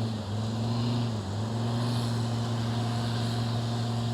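4WD engine running steadily under load, pulling a bogged vehicle out of soft beach sand on a recovery strap. Its pitch dips briefly about a second in, then holds steady.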